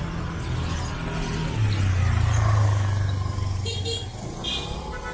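A motor vehicle's engine passing close on a street: a low hum that swells about one and a half seconds in and fades away by about four seconds. A few short high-pitched beeps follow near the end.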